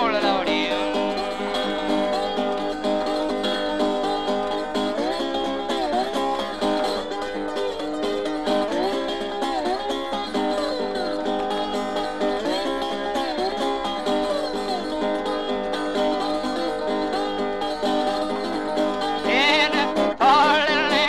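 Acoustic instrumental music on plucked strings, some notes sliding up and down in pitch.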